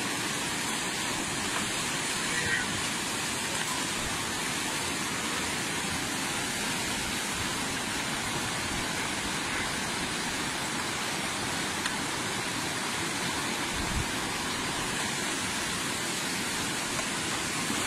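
Steady rush of a fast-flowing river, an even, unbroken noise, with a brief low knock about fourteen seconds in.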